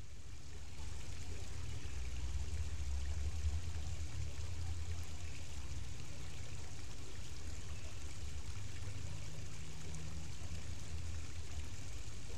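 Shallow creek water running and trickling over rocks, with a steady low rumble underneath that swells about two seconds in.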